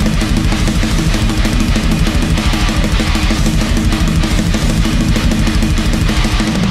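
Loud heavy metal intro music: electric guitar over a fast, driving drum kit.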